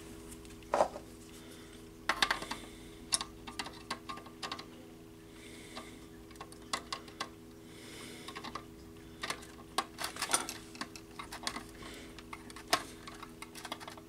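A screwdriver working a small terminal screw on a red plastic fire-alarm device, with irregular light clicks and scrapes of metal on metal and plastic as a stranded wire is re-seated and the screw tightened. A faint steady hum lies underneath.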